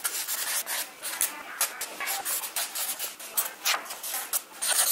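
Felt-tip marker writing on a pad of lined paper: a quick run of short scratchy strokes with brief pauses between them.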